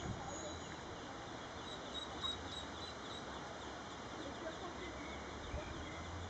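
Ducklings peeping: many short, high peeps scattered throughout, over a steady low hum and hiss.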